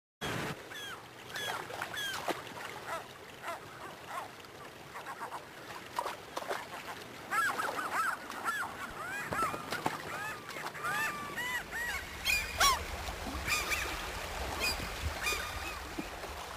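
A flock of birds calling with many short honking calls, thickest around the middle, over a background hiss; a low steady hum comes in past the halfway point.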